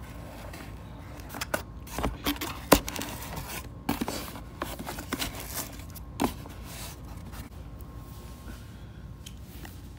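Delivered shipping box being opened by hand: scraping and tearing of the packaging, with a string of sharp clicks and knocks, the loudest a little under three seconds in.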